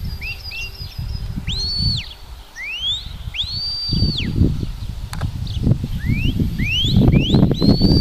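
Shepherd's whistle commands to a working sheepdog: a string of high whistles, several swooping up to a held steady note before dropping off, and a quick run of short rising whistles near the end. A low, uneven rumble runs underneath.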